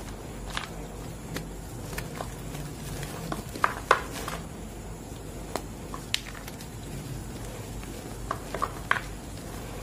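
Hands crushing and crumbling green-dyed reformed gym chalk in a bowl of chalk powder: soft, irregular crunches and crumbly snaps. A cluster of louder crunches comes about four seconds in, and another near the end.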